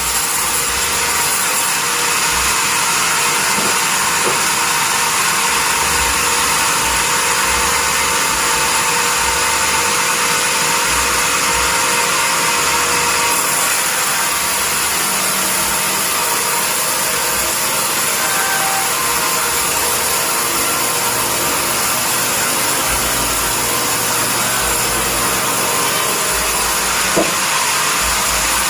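Sawmill bandsaw running with a steady machine noise, sitting mostly high in pitch; a short click near the end.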